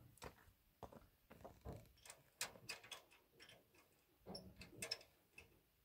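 Faint, irregular clicks and knocks of wooden poles being shifted against each other in a pickup truck's bed.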